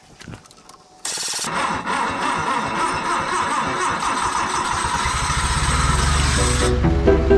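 Propane forklift engine starting about a second in, then running steadily. Background music comes in near the end.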